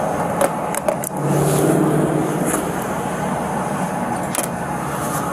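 Steady noise of a car engine running close by. A few sharp clicks and knocks come from handling and clothing against the body-worn camera, about half a second and a second in and again about four seconds in.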